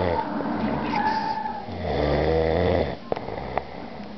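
A sleeping man snoring. The tail of one snore comes at the start, then a quieter breath, then one full low snore lasting about a second in the middle, followed by two faint clicks.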